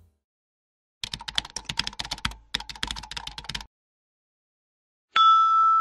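Rapid clicking of computer-keyboard typing for about two and a half seconds, with a short break in the middle, then a single bright ringing tone about five seconds in that starts suddenly and slowly fades.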